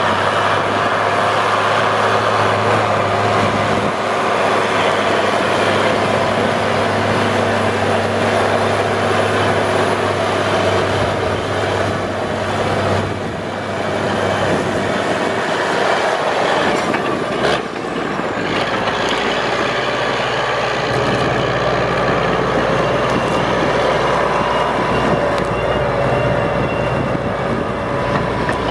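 New Holland Versatile 9684 four-wheel-drive tractor running steadily under load while pulling a ripper through the soil. The sound is its Cummins 855 cubic inch six-cylinder diesel.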